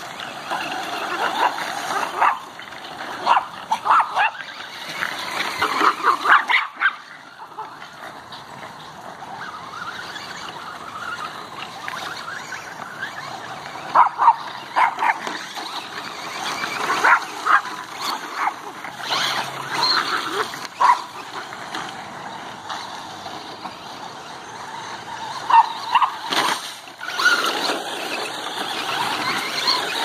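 Yorkshire terriers barking and yipping excitedly in repeated short bursts while chasing a remote-control car.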